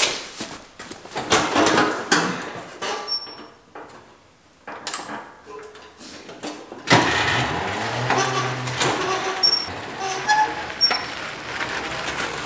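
Knocks and clunks as a rider mounts an electric-converted John Deere 140 lawn tractor. From about seven seconds in, the tractor's 48-volt electric transaxle runs with a low hum as it drives off, with tyres rolling over concrete.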